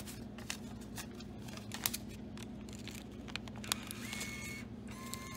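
A paper bill rustling and crinkling with scattered clicks as it is pushed into a soda vending machine's bill acceptor, over a low steady hum. About four seconds in a steady whine starts: the bill acceptor working the bill, which it turns back because the machine does not take fives.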